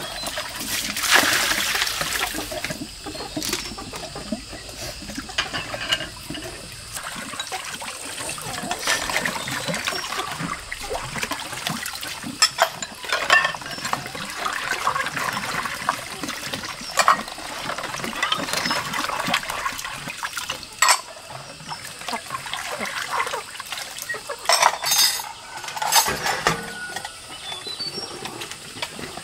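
Dishes washed by hand in a plastic basin of water: water sloshing and splashing, with sharp clinks of bowls and plates knocking against each other several times.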